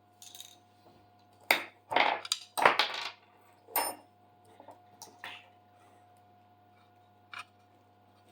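Small metal pieces clinking and clattering, picked through and set down in a handful of separate sharp clinks, one with a short metallic ring, as the right size of hardware or hex key is sought.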